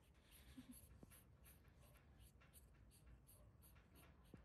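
Near silence: faint background hum with a soft, regular high ticking about four times a second.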